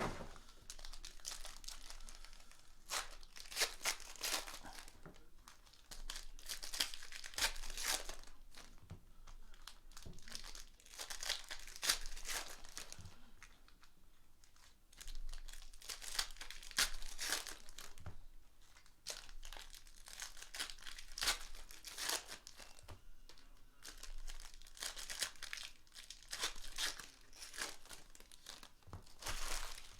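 Plastic and foil trading-card pack wrappers crinkling and tearing in repeated irregular bursts as hobby packs are ripped open and handled.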